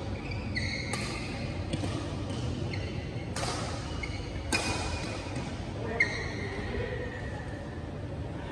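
Badminton rackets hitting a shuttlecock back and forth in a doubles rally: sharp hits a second or so apart, with short squeaks of court shoes on the floor, echoing in a large sports hall.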